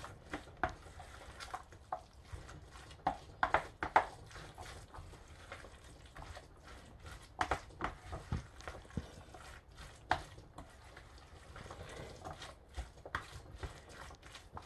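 A spatula stirring a thick chickpea salad with cashew cream in a plastic bowl: irregular soft scrapes and clicks as the mixture is folded over.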